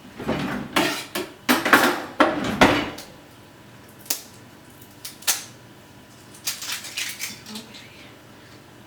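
A kitchen knife knocking and scraping against a container, probably prying open the palm oil. There is busy clattering for about three seconds, then a few separate clicks.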